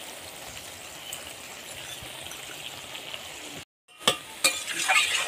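Diced bottle gourd frying in oil in a metal wok, with a steady sizzle. Near the end, after a brief break, a metal spatula knocks and scrapes against the pan a few times as the mixture is stirred.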